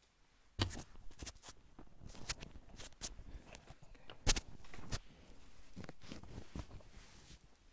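Clip-on lavalier microphone being handled and clipped onto cloth, picking up its own handling noise: a dense run of sharp clicks and knocks with rustling, starting about half a second in, the loudest knock a little past four seconds in.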